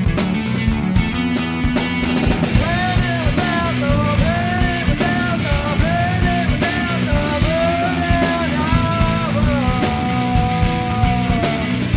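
A rock band playing a song with full drums and bass. A lead melody comes in about two and a half seconds in, moves in rising and falling phrases, and holds one long note near the end.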